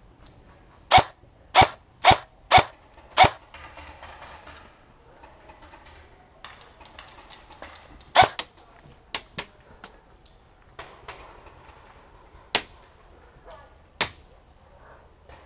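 Airsoft electric rifle (Ares Amoeba AM-013) fired in single shots. Five sharp pops come about half a second apart in the first few seconds, another comes about eight seconds in followed by a few fainter pops, and two more come later, spaced out.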